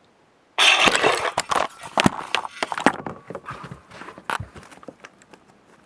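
Plastic toys clattering: a sudden burst of rattling about half a second in, then a quick run of sharp knocks and clicks that thins out into scattered taps.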